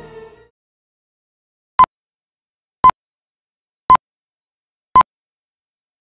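Film-leader countdown beeps: short, identical electronic tones, one a second, marking each number of the countdown. They start nearly two seconds in, with silence between them.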